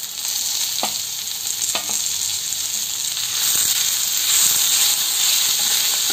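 Chopped green capsicum added to onion and tomato frying in oil in a nonstick pan, stirred with a wooden spatula: steady sizzling that grows louder about three and a half seconds in, with two light knocks about one and two seconds in.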